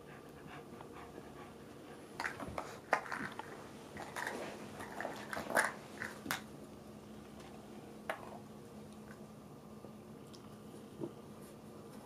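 A Cavalier King Charles Spaniel nosing and pushing a small plastic shot glass about as it hunts for treats: light plastic clicks and knocks, with treats rattling and the dog sniffing. They come in a cluster over a few seconds in the middle, with a couple of single clicks later.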